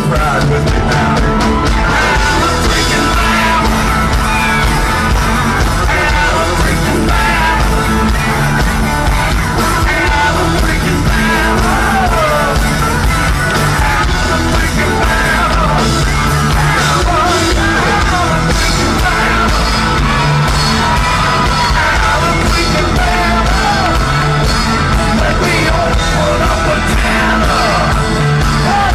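Loud live country-rock band: a male lead vocal sung into a microphone over electric guitar, bass and drums, recorded from the audience, with shouts mixed in.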